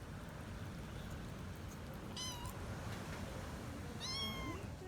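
A kitten mewing twice in high, thin calls, a short one about two seconds in and a longer one near the end, over a steady low rumble.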